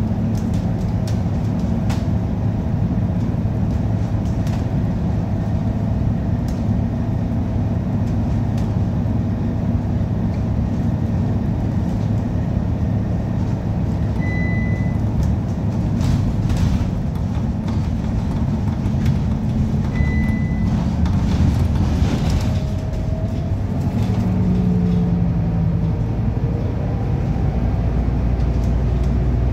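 City bus engine and gearbox running while driving, heard from inside the passenger cabin: a steady low drone with a few short rising whines in the last third. The uploader finds it doesn't sound right and takes it for an engine or gearbox issue. A short high beep sounds twice midway.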